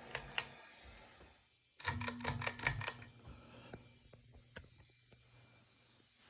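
Two sharp clicks, then about a second of rapid clicking and clattering, then two more single clicks.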